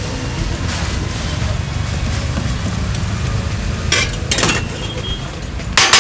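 Metal spatula mashing and mixing butter and vegetables on a hot dosa griddle, with sizzling and two louder scrapes, about four seconds in and at the end, over a steady low rumble.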